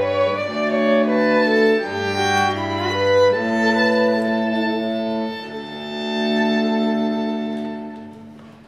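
Bowed strings, violin and cello, playing a slow piece in long held notes over a moving bass line. It closes on a sustained chord that fades out near the end.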